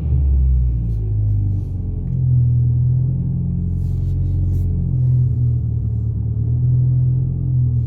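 Mitsubishi Lancer Evolution X's turbocharged 2.0-litre four-cylinder engine idling steadily, warming up after a cold start from having sat unused for a while.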